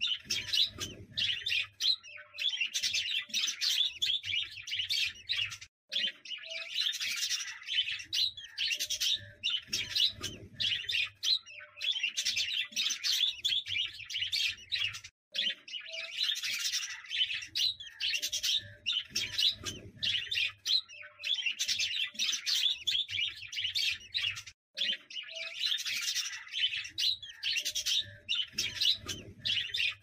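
Budgerigars chattering: a dense, continuous high twittering that cuts out briefly three times.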